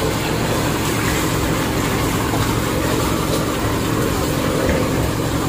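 Fishing boat's engine running steadily at an even speed, an unbroken hum.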